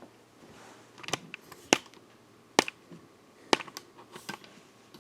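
A computer keyboard's keys pressed one at a time: several sharp, separate clicks, unevenly spaced.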